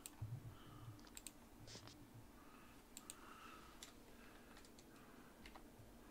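Near silence in a small room, with faint, irregular clicks and light taps scattered through it, about a dozen in all.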